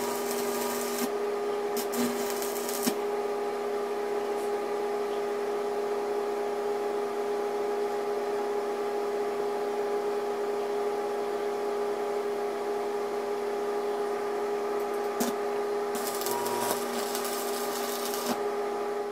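Arc welding steel, with rebar and pipe being welded onto a rebar door frame: short stretches of crackling, sizzling arc in the first second, again about two seconds in, and for a couple of seconds near the end. A steady machine hum runs under it.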